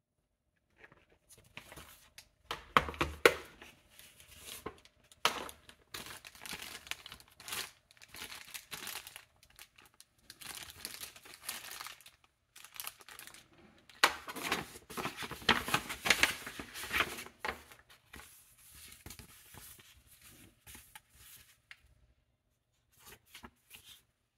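Plastic bag and paper packaging crinkling, rustling and tearing as they are unwrapped and handled by hand, in irregular bursts with short pauses, loudest a few seconds in and again about two-thirds of the way through.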